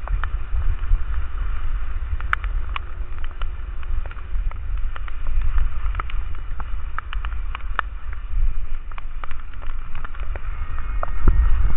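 Wind rumbling on the microphone of a camera carried downhill by a moving skier, with skis sliding over wet snow. Scattered sharp ticks come at irregular intervals throughout.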